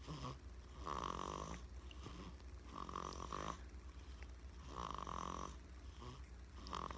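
A sleeping baby girl snoring, one short snore about every two seconds.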